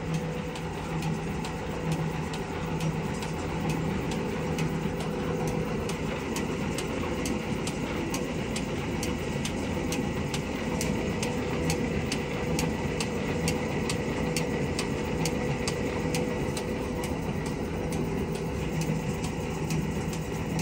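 Stanko 7A420 vertical slotting machine running its table power feed at the minimum feed rate: a steady motor and gearbox hum with regular ticks about three a second.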